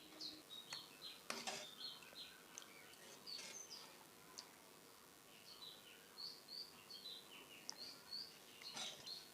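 Small birds chirping and twittering faintly in short, scattered calls, with a couple of brief sharp clicks about a second and a half in and again near the end.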